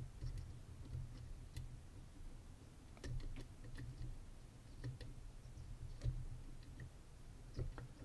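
Faint, scattered metallic clicks from a disc-detainer pick rotating the discs inside an OnGuard disc-detainer padlock, each disc turned under rear tension until it binds at a gate.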